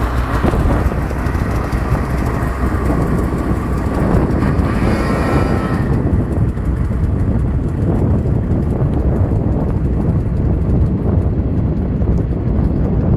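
Arctic Cat snowmobile engine running as the sled pulls away across the snow and circles back, over a constant low rumble. About four seconds in a pitched whine climbs as the engine revs, then fades as the sled gets farther off.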